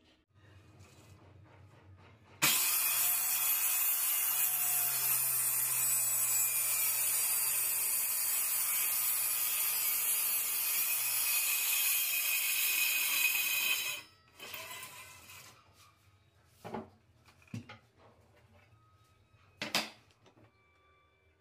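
DERA handheld circular saw crosscutting a plywood panel along a homemade crosscut jig. The loud, steady cutting noise starts suddenly about two seconds in, lasts about eleven seconds, then stops and briefly runs down. Three sharp knocks follow near the end.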